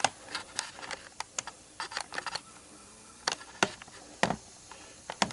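Handling noise: an irregular run of sharp light clicks and taps, a dozen or more spaced unevenly, with a louder knock a little after four seconds in.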